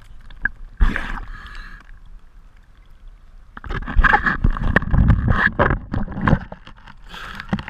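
Water sloshing and splashing around a diver's camera as it breaks the surface beside a boat hull. A short burst of bubbling comes about a second in, and the splashing gets loud and choppy from about halfway.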